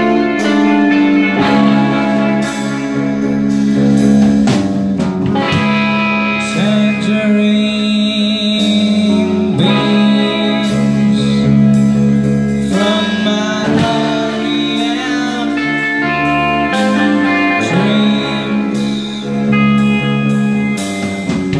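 A live band playing: electric guitar, electric bass and a drum kit, with a man singing at times.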